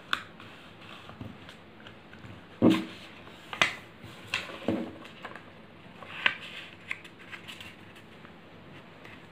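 Sheet of printer paper rustling and crinkling as its corners are folded and creased flat by hand: a run of short, irregular crackles.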